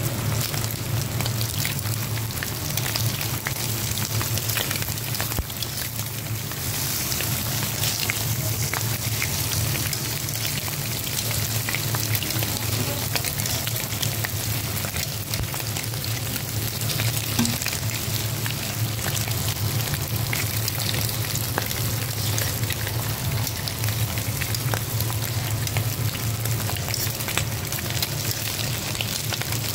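Raw bacon strips frying in their fat on a flat-top griddle: a steady sizzling hiss with dense little crackling pops, over a steady low hum.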